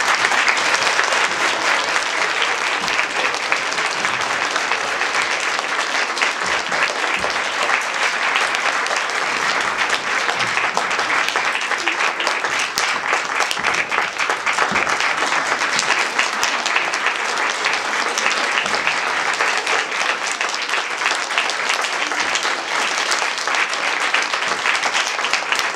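Audience applause: many people clapping at once in a dense, steady mass of claps.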